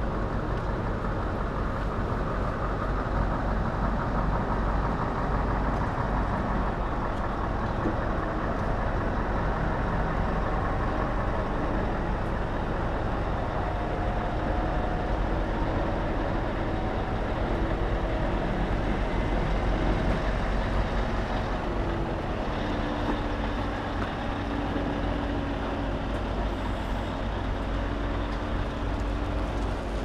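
Heavy diesel engine of construction machinery running steadily, a dense low rumble with faint whines that shift in pitch now and then.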